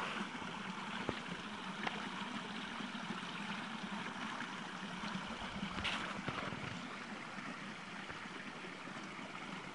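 Steady rush of flowing stream water, with a few faint clicks.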